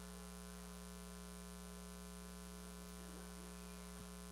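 Steady low electrical mains hum with its overtones, unchanging, with no speech over it.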